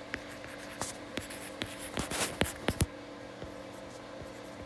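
Stylus tapping and sliding on a tablet's glass screen while handwriting words: a series of light clicks and scratches, busiest and loudest about two to three seconds in.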